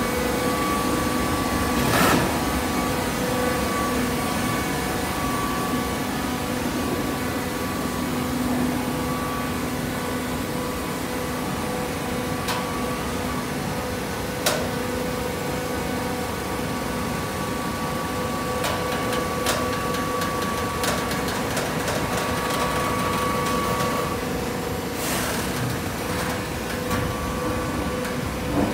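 Horizontal fibre baling press running: a steady hum and whine from its hydraulic power unit. A few sharp metallic clicks and a short burst of clatter come about 25 seconds in.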